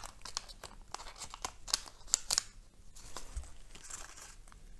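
Shiny plastic wrapper of a small blind-bag toy packet crinkled and pulled open by hand, with scattered sharp crackles, the loudest about two seconds in.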